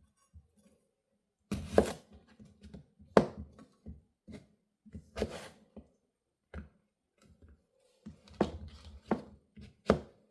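Knife slicing through mini cucumbers onto a cutting board: irregular, unhurried strikes, a second or more apart at first and coming closer together near the end.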